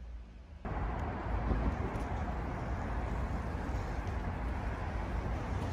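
Steady outdoor city ambience with a low rumble of distant traffic. It cuts in suddenly about half a second in, after a moment of quiet room tone.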